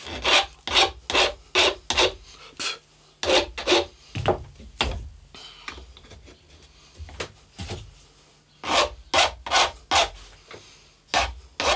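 Flat hand file rasping back and forth across the metal housing of a vintage Kluson-style guitar tuner held in a vise. The strokes come in quick runs of about two to three a second, with a pause of a few seconds near the middle. It is taking a little off the tuner's edge and its burrs so the tuners fit closer together on the headstock.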